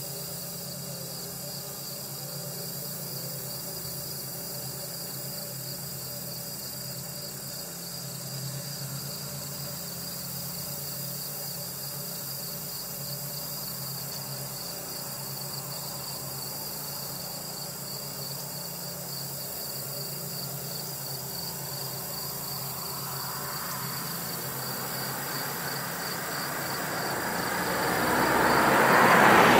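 A steady chorus of insects, crickets or similar, trilling in an even pulsing band high up. From about two-thirds of the way in, the rush of an approaching vehicle swells and is loudest at the very end.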